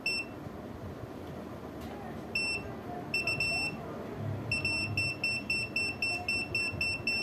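Aneng 681 multimeter's built-in buzzer beeping: a few single short, high beeps, then from about halfway a steady run of short beeps about three a second.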